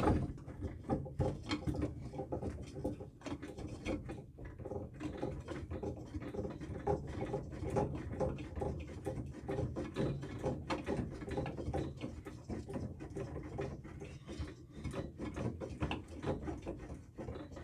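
Close-quarters tubing cutter being spun round a copper pipe, a continuous run of small irregular clicks and scraping as its wheel cuts through the pipe.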